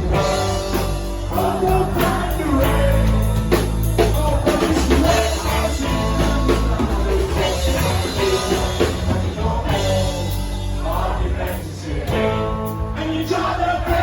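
Live rock band playing, with drum kit, bass and guitars. Singing comes in places.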